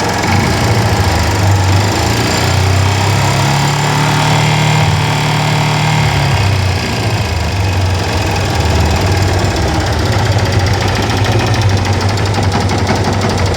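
Yamaha FZ16 Fazer's single-cylinder four-stroke engine running with a rapid mechanical knocking over its idle; it revs up a few seconds in and settles back down. The knock is the unusual engine noise the owner is worried about, cause unknown.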